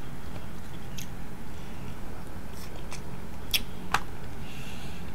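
Snow crab leg shells being pulled apart and picked by hand: a few short, sharp clicks and snaps, the loudest two about three and a half and four seconds in, over a steady low hum.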